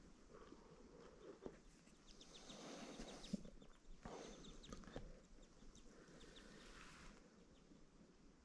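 Small birds chirping faintly in quick short notes, over soft rustling and a few light knocks.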